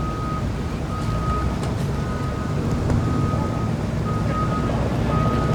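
Vehicle reverse alarm beeping at one steady pitch, about one beep a second, as a vehicle backs up. Beneath it runs the low, steady sound of an engine.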